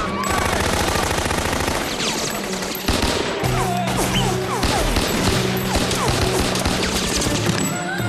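Two handguns firing rapidly and continuously, a dense fusillade of shots.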